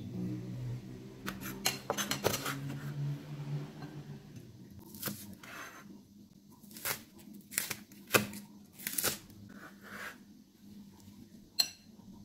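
Steel cleaver knocking and scraping against a bowl's rim and chopping green onion on a plastic cutting board: a quick cluster of knocks early on, then single cuts about a second apart.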